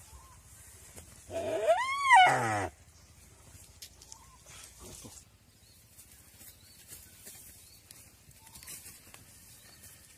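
A Timor deer hind, wounded and pinned down, gives one loud distress bleat about a second and a half in. The call rises and then falls in pitch over about a second. Fainter short cries come later.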